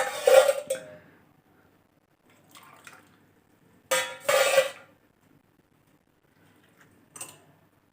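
Hot herbal kahwa poured from a pan through a tea strainer into a cup in short splashing pours: one at the start, a faint one between, and another about four seconds in. A brief knock of utensils comes near the end.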